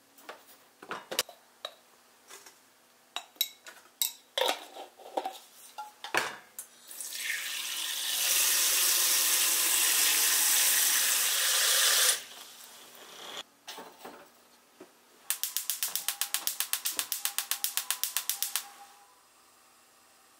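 Kitchen-cleaning handling sounds: scattered clicks and knocks of things being moved, then a kitchen tap running in a steady hiss for about five seconds and cut off. Near the end comes a fast, even run of short strokes, about seven a second, for roughly three seconds.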